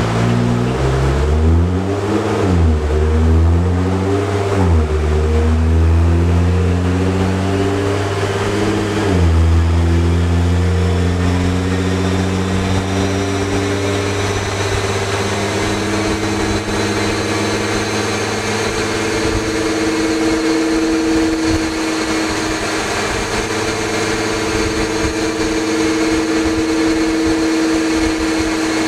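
Nissan GT-R R35's twin-turbo 3.8-litre V6 under load on an all-wheel-drive chassis dyno. The revs climb and drop back sharply about four times in the first nine seconds, at the gear changes, then hold nearly steady and rise slowly in a high gear while a thin high whine climbs with them.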